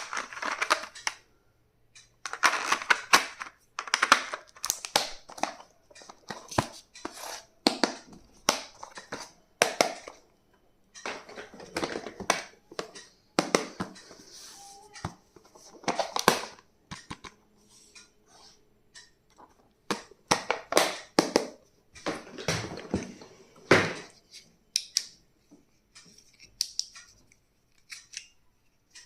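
Stationery being unpacked and handled: plastic packaging crinkling and rustling, with many sharp clicks and snaps in irregular clusters.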